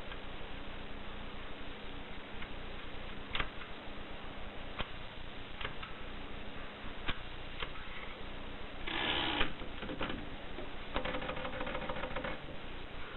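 Mercedes Selecta typewriter at work: single key strikes a second or so apart, then a short dense rattle about nine seconds in, and a fast run of mechanical clicks near the end.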